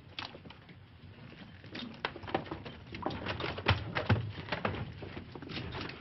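Irregular scuffs, knocks and light clatter of several men moving about on rough ground, growing busier after a few seconds, with a couple of sharper knocks near the middle.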